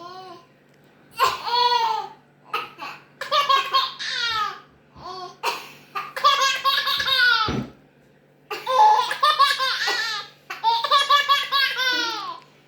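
Small child laughing hard in about five repeated fits of high-pitched laughter, with short pauses between them. Someone's coughing sets the laughter off.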